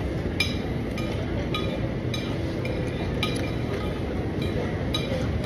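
Repeated light clinks of cutlery against dishes, about one a second, over the steady background din of a busy food court.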